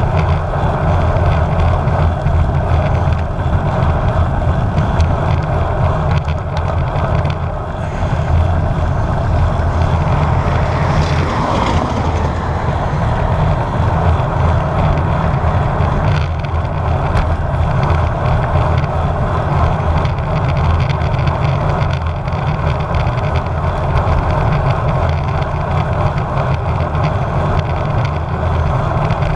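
Wind rushing over a bike-mounted GoPro's microphone while riding a road bike at speed, mixed with tyre and road noise, in a steady loud rush. A brief swell of higher hiss comes about eleven seconds in.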